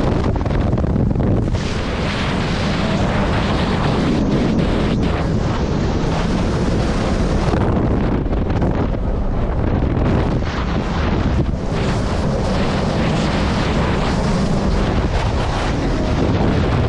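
Heavy wind buffeting the microphone of a jet ski running at speed, over the steady rush of its engine and water.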